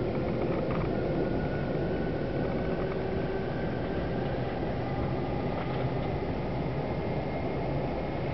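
Steady rumble and road noise of a regional express train running along the track, heard from inside the passenger coach, with a faint high whine from the drive above it.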